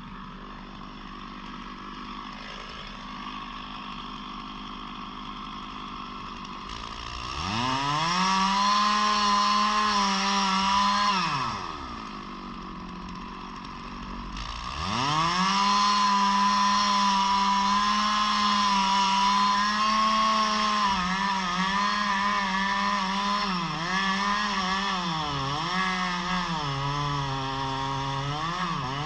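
Two-stroke chainsaw idling, then revved up to full throttle and held a few seconds before dropping back to idle. About halfway through it revs up again and stays at full throttle, its pitch dipping again and again under load in the cut as the ash tree is felled.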